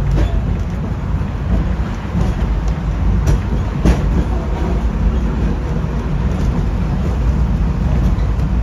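Tram running on rails: a steady low rumble with a few sharp clicks, two of them close together a little over three seconds in.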